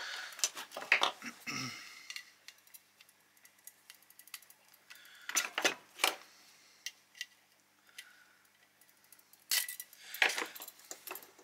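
Small metal parts of a dismantled fridge thermostat clinking and clicking as it is handled and turned over on a workbench, in a few scattered clusters. A faint steady hum from a washing machine runs underneath.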